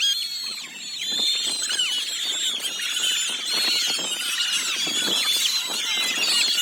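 A large flock of birds chattering: a dense, steady mass of many overlapping high chirps and squeals.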